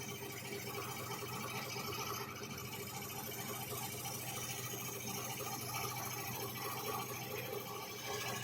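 Electric scroll saw running steadily, its reciprocating blade cutting through MDF with an even buzzing hum.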